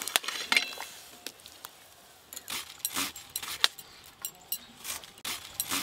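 A steel plate clinking against a metal pot as sliced potatoes are tipped into water, then, after a short pause, a series of crisp cuts as a cabbage is shredded with a knife onto a steel plate.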